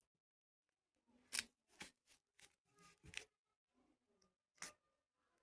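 Something being handled during unboxing: a scattering of sharp clicks and brief rustles, about six in all, with the clearest a little over a second in, around three seconds in and near the end.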